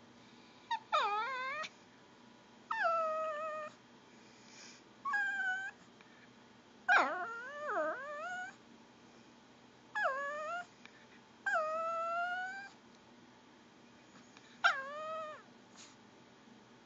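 A Pomeranian making gurgling whine noises, begging for food: about eight drawn-out whines with pauses between them, each starting high, dropping in pitch, then holding.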